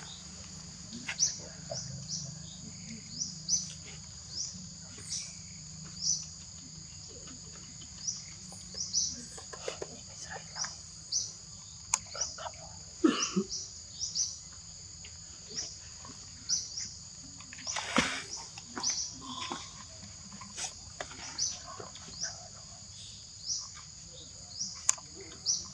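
Steady, high-pitched drone of forest insects, with short high chirps scattered throughout. Two sharp knocks land about halfway through and about two-thirds of the way through.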